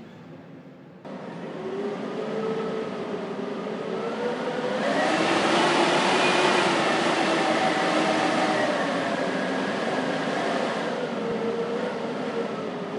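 Blizzard wind howling, with whistling tones that waver slowly in pitch over a steady rushing noise. It jumps up suddenly about a second in, swells into a strong gust about five seconds in and eases off near the end.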